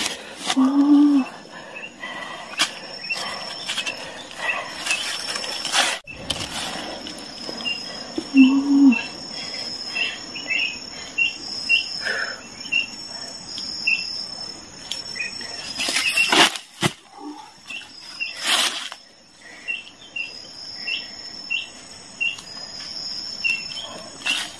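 Insects chirping steadily in undergrowth, with a running series of short high chirps. Two short low-pitched calls come early and again about eight seconds in, and a few sharp rustles and knocks come past the middle.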